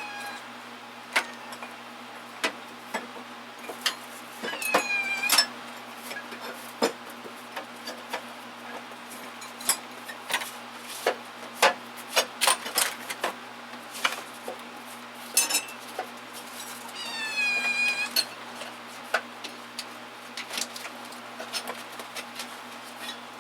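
A cat meowing twice, two drawn-out meows about five seconds in and again about two-thirds of the way through, over scattered clinks and clatters of metal hand tools being handled in toolbox drawers.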